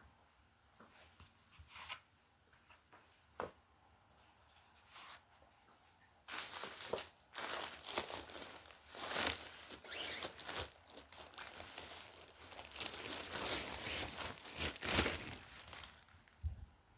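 Clothing packaging being torn open and crinkled by hand. A few faint clicks come first, then about six seconds in, loud rustling and tearing runs for around nine seconds.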